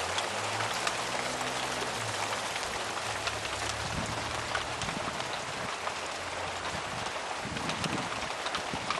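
Soft hail falling steadily, a dense even hiss of pellets with scattered sharper ticks.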